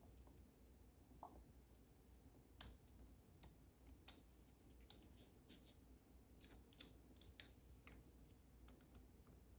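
Faint, scattered small clicks and ticks of metal lock parts and a small tool being handled while a Goal D9 lock's core is taken apart, about a dozen irregular clicks over a faint steady hum.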